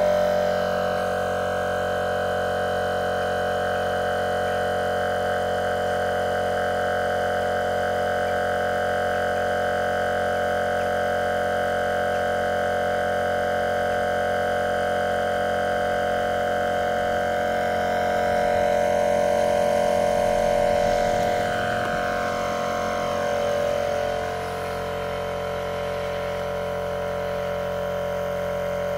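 Procraft LK400 twin-cylinder 12-volt tyre compressor running steadily as it pumps up a flat car tyre, a steady pitched motor hum. It drops a little in level about 24 seconds in.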